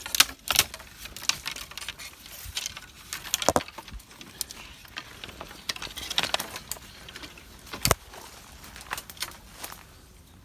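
Twigs and branches cracking and snapping among rustling foliage as someone pushes a way through dense woodland undergrowth, with irregular sharp cracks throughout and one heavier snap near the end.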